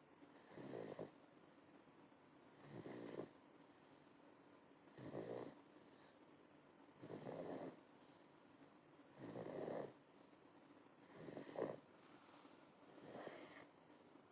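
A young pet, eight months old, snoring: seven short snores, one about every two seconds.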